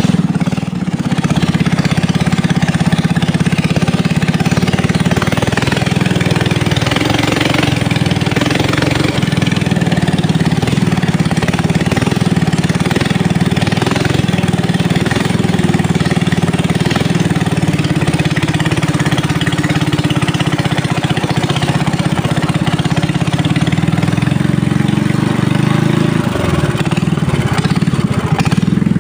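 An engine running steadily at an even speed throughout.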